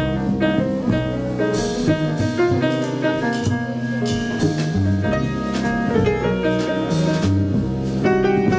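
Live jazz quartet playing: a Gibson ES-175 archtop electric guitar, a grand piano, a plucked double bass walking underneath, and a drum kit keeping time on the cymbals.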